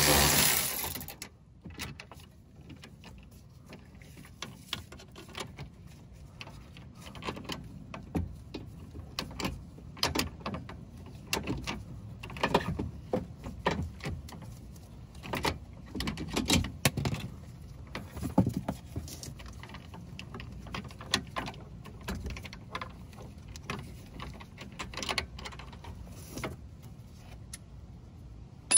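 A power tool runs on the stabilizer link nut and stops suddenly about a second in. After that come scattered, irregular metallic clicks and knocks from hand tools and parts being handled on the suspension during the link installation.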